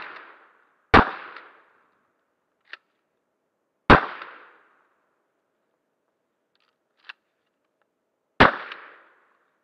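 Three 12-gauge pump-action shotgun blasts firing No. 7 birdshot target loads, a few seconds apart, each with a short echo trailing off. A brief faint click comes between the shots.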